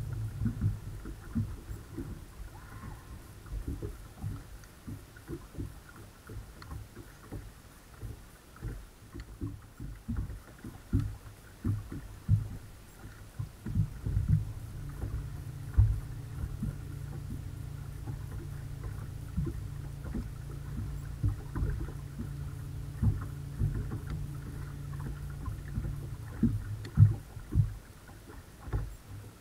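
Water lapping and knocking irregularly against the hull of a bass boat, with a steady low hum from the bow-mounted electric trolling motor that comes in at the start and again for much of the second half.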